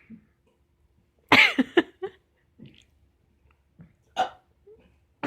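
A person forcing a burp: one loud, short voiced belch about a second in, then a few small throat sounds.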